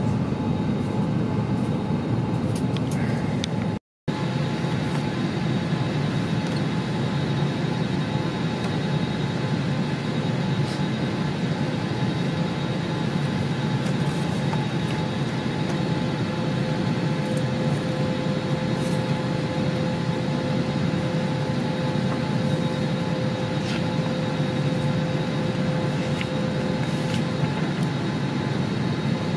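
Steady cabin noise inside an Airbus A321neoLR airliner: an even rushing hum of air and machinery with a few faint steady whine tones. The sound cuts out briefly about four seconds in.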